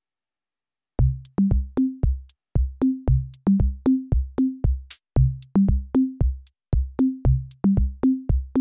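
Electronic backing music: a drum-machine beat of deep bass-drum hits under a bass line of changing notes, with short high ticks, starting about a second in.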